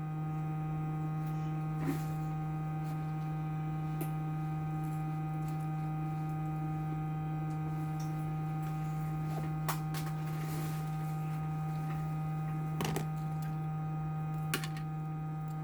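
Steady electrical hum, with a few faint clicks scattered through it.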